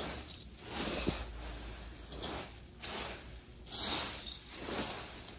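Slotted steel spatula tossing dry puffed rice with fried peanuts and spices in a large steel pan: crisp rustling in repeated sweeps, with the spatula scraping and clicking against the metal.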